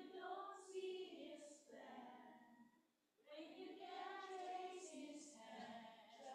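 A woman's voice singing a slow worship song, faint, in two long held phrases with a short break about three seconds in.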